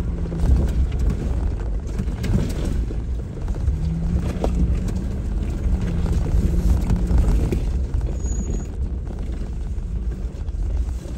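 Off-road vehicle driving slowly over a rough dirt trail: a steady low engine rumble with a hum that comes and goes, and scattered clicks and knocks over the top.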